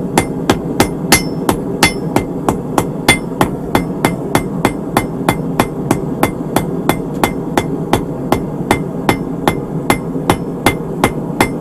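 Steady hand-hammer blows on hot steel bar over an anvil, about three ringing strikes a second, spreading the head of a small forged Mjolnir pendant. A steady low rumble runs underneath.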